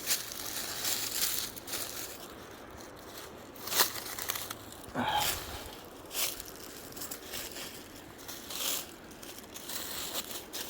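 Footsteps crunching and pushing through thick briars and undergrowth, with brush crackling and tearing at irregular moments and one sharper crunch a little under four seconds in.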